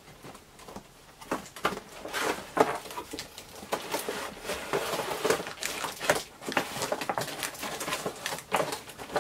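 Cardboard toy boxes and plastic packaging being handled: irregular rustling, scraping and light knocks as items are pulled out of a boxed action figure's package.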